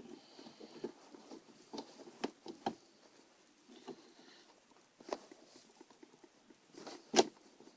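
Scattered light clicks and taps of fingers working a small cable plug into its connector on a laptop's board, with a sharper click near the end.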